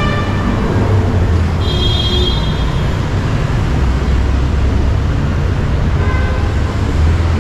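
City street traffic: vehicle engines running with a steady low rumble, and a brief high tone about two seconds in.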